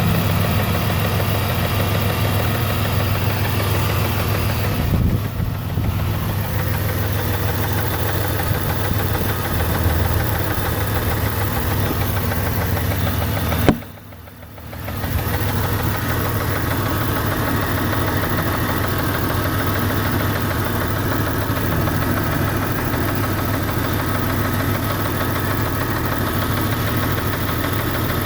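Jeep Grand Cherokee 4.0-litre inline-six engine idling steadily with a ticking noise. About fourteen seconds in a sharp click is followed by the sound dropping away for a second or two before the engine noise returns.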